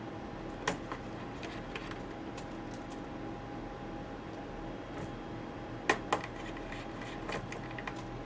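Scattered small metallic clicks and taps as tiny screws and a screwdriver are handled and set into an iBook G4's metal top shield, the two sharpest about six seconds in, over a steady low hum.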